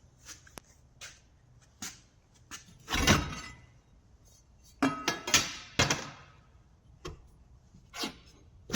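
Metal pipes clinking and clanking against each other and the door as they are worked loose, in scattered sharp knocks that ring briefly: one louder knock about three seconds in and a quick cluster of several about two seconds later.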